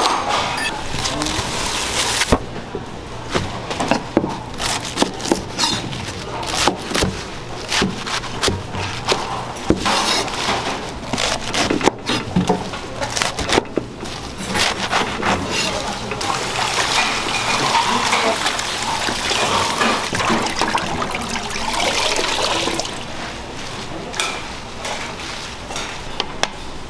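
Busy restaurant kitchen: irregular clatter of dishes and utensils through the first half, then several seconds of running water in the second half, under background chatter.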